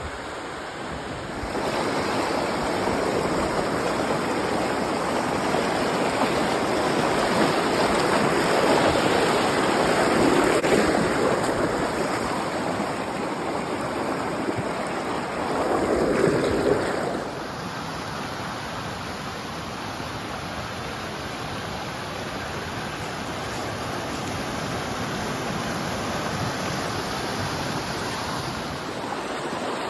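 Rain-swollen creek rushing over rocks, a steady loud rush of water. It gets louder about a second and a half in and falls to a softer rush about seventeen seconds in.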